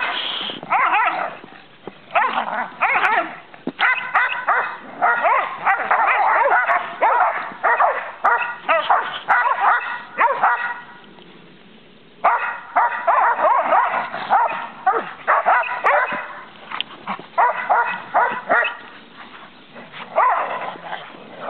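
Australian Shepherd dogs barking in quick, overlapping runs of barks while playing, with a pause of about two seconds about halfway through.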